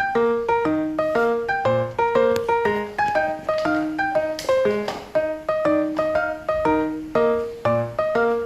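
Background music: a piano playing a steady, repeating pattern of notes.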